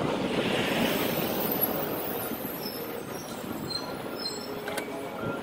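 Road traffic noise from a city bus passing close alongside, loudest in the first second, with a few faint high squeals later on.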